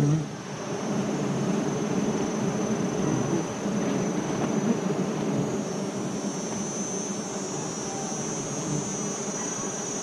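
A swarm of wild honeybees buzzing densely and steadily around their comb as it is being cut, with a thin, high, steady insect whine that grows stronger in the second half.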